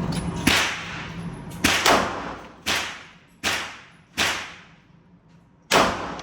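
Gunshots at a shooting range: about seven sharp reports at an uneven pace, two of them close together about two seconds in, each followed by a short echoing tail.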